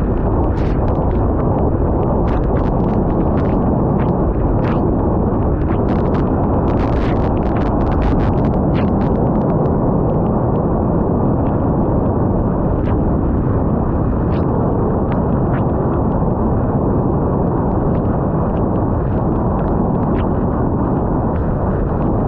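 Loud, steady rumble of wind buffeting a GoPro Hero 9's microphone in rain, with scattered sharp ticks of raindrops striking the camera. The ticks come thickest in the first nine seconds or so.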